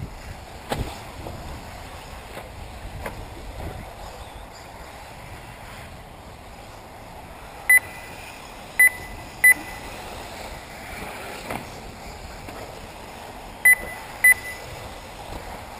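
Short, high electronic beeps from an RC race lap-timing system, five in all: three in quick succession around the middle and two near the end. Under them is a steady outdoor background with a few faint knocks.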